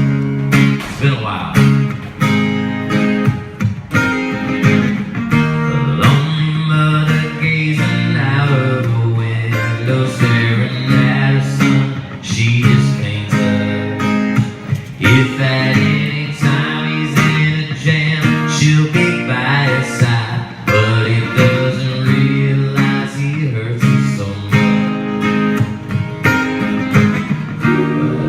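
Live country music: a strummed acoustic guitar with a voice singing over it.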